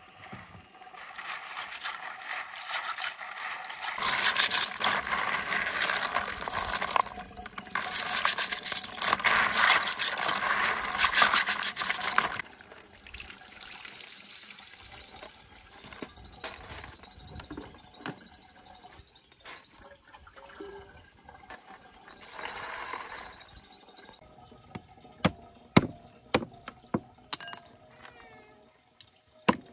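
Water splashing and pouring as stream snails are washed and drained in a plastic basin. The water is loud for about ten seconds, stops abruptly, and quieter sloshing follows. Near the end comes a run of sharp knocks as a knife chops snails on a wooden block.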